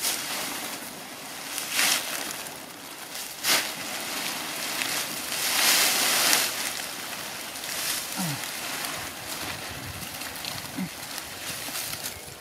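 Dry leaves and grasses rustling and crunching as a person crawls into a leaf-covered debris hut, in short bursts with a louder, longer stretch of rustling about six seconds in.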